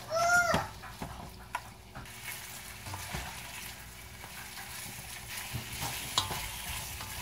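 Pork cubes sizzling as they fry in hot oil, stirred with a wooden spoon that scrapes and now and then knocks against the pot.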